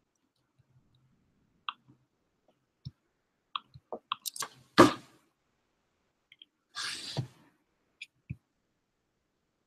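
Scattered small clicks and knocks of computer handling, mouse or keyboard clicks and desk contact close to the microphone, with one sharper, louder click about five seconds in and a short rush of noise about seven seconds in.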